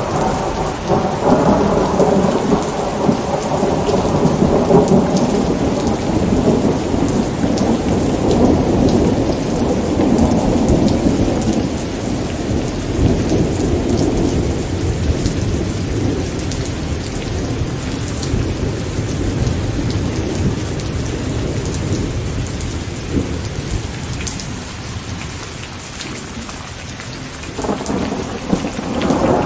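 Steady rain falling with thunder: a long roll of thunder rumbles through the first half and slowly dies away, and another roll starts near the end.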